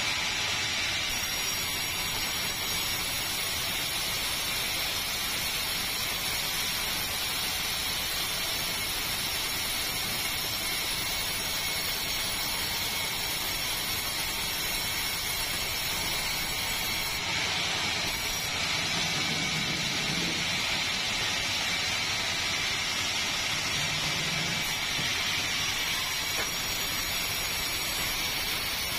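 Sawmill machinery running steadily, a constant high hiss-like machine noise with no breaks.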